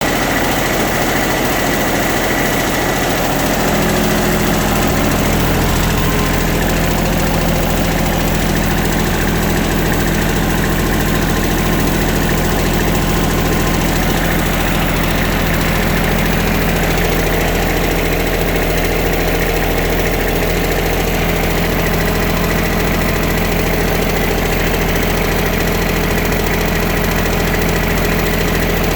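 Bobcat 553 skid-steer loader's diesel engine idling steadily, its note changing a few seconds in.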